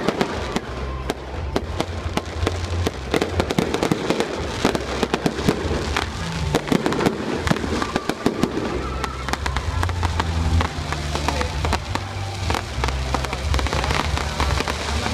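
Fireworks going off in a rapid, continuous string of pops, bangs and crackles.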